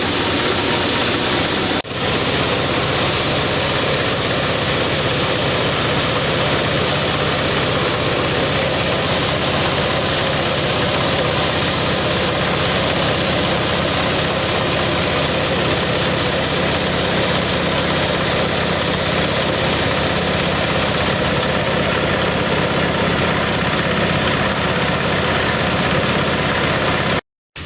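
Dry coffee huller machine running steadily: a low engine-like hum with a dense hiss over it. It dips briefly about two seconds in and cuts off suddenly near the end.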